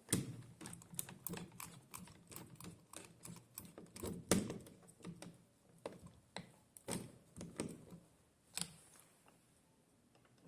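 A run of irregular sharp clicks and light taps, a few each second, stopping about two seconds before the end.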